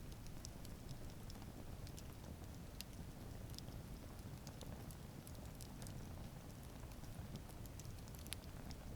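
Wood campfire burning, with scattered sharp crackles and pops over a low steady rumble of flame.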